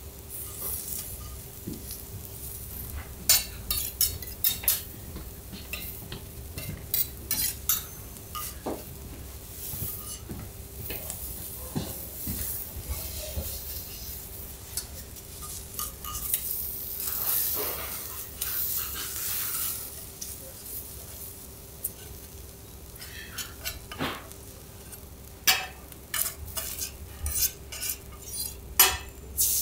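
Kuruma prawns frying on a teppanyaki iron griddle, a steady sizzle that swells for a few seconds midway. Metal spatulas repeatedly tap and scrape against the hot plate in quick clusters of clicks.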